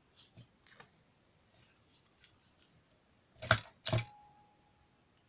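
Corner paper punch pressed down through paper and released: two sharp clacks under half a second apart, the second with a brief metallic ring. Faint rustles of paper being positioned come before.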